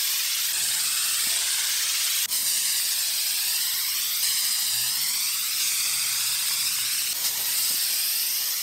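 Aerosol can of Flex Seal rubberized coating spraying onto plywood in a long, steady hiss, with one momentary break a little over two seconds in.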